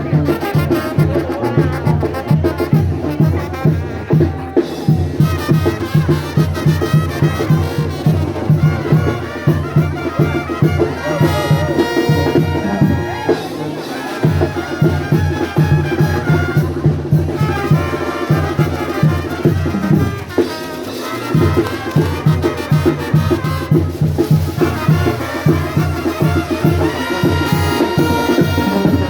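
Brass band music: trumpets and other brass playing a Latin tune over a steady beat, with a couple of brief breaks.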